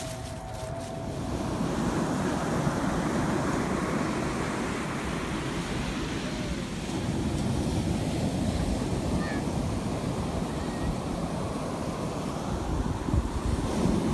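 A steady rushing noise, like surf or wind outdoors, swelling over the first couple of seconds and then holding.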